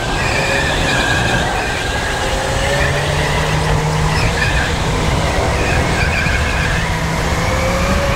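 Go-kart running flat out around the track, heard from the driver's seat: a steady drive drone with high whining tones that rise and fall as the kart speeds up and slows, and tyres squealing through the corners.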